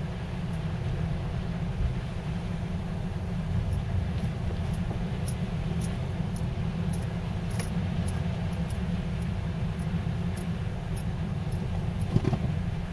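Car cabin noise while driving slowly over rutted, packed snow: a steady low rumble of engine and tyres, with scattered light clicks and rattles.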